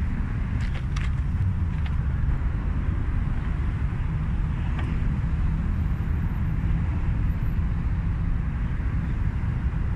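Kawasaki KLX250's single-cylinder four-stroke engine idling steadily, with a few light clicks in the first couple of seconds.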